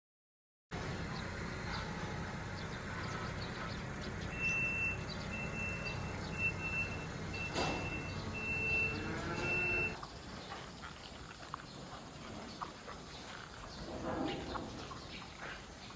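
A vehicle running with a steady low hum while a high electronic beep sounds over and over, in short even pulses, for about five seconds. It then cuts to quieter outdoor ambience.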